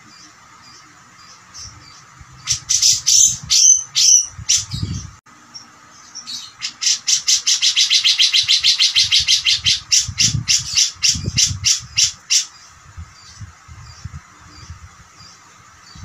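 Cucak jenggot (grey-cheeked bulbul) calling: a few loud, harsh, bending calls about two and a half seconds in, then a long rapid run of about eight notes a second that slows and breaks off about twelve seconds in.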